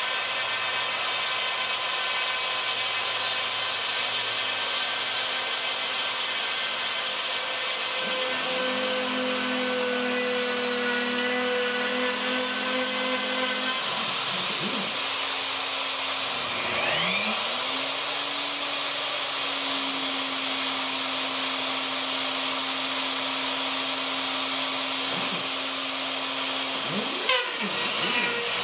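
Craftsman 2 hp router running on a CNC machine as its bit cuts into a cedar fence picket: a steady, loud whine. Its pitch briefly dips and recovers a few times, around halfway and again near the end.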